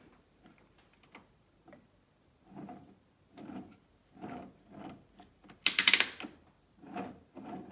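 The crankshaft of an MBK X-Limit's Minarelli AM6 two-stroke engine, with the cylinder removed, is turned over by hand and gives a soft rumbling grind on each turn, a noise the owner puts down to a worn crankshaft bearing. About six seconds in there is one loud metallic rattle.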